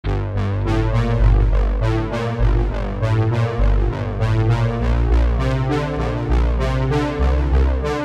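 Background music with deep bass notes and a steady beat.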